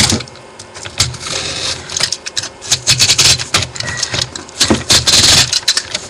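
A cardboard mailer wrapped in heavy packing tape being worked open: the tape cut and pulled off the cardboard. A run of irregular clicks, scrapes and rustles, with a longer rasp about five seconds in.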